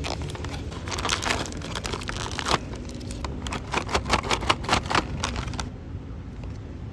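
Crisp fried pork rinds being bitten and chewed: a run of sharp crackling crunches that stops after about five and a half seconds.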